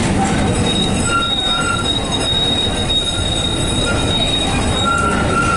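Fiat Ferroviaria 4900-series tram running, heard from inside the car: a steady loud rumble of wheels on rail with a thin, high wheel squeal held through most of it, and shorter, lower squeals about a second in and again near the end.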